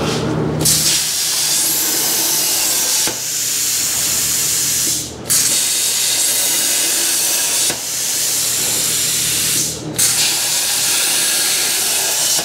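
CNC plasma cutter cutting a steel exhaust flange out of plate: a loud, steady hiss of the arc and air that drops out for a moment twice, about five seconds in and again near ten seconds.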